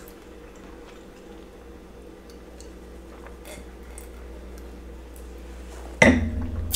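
Quiet drinking from a stemmed wine glass, with faint sips and small clicks. About six seconds in, a sudden loud knock as the glass is set down on the table, followed by a short hum of the voice.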